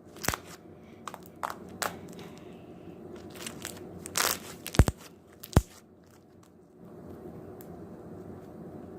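Foam-bead slime being squished and worked in the hands, crunching and crackling with irregular sharp pops and clicks, which die away about six seconds in.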